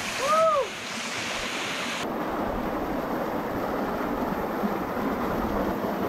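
Steady rushing of a jungle stream and waterfall, a dense even hiss of running water. A short rising-and-falling call sounds once near the start, and the water noise changes character about two seconds in.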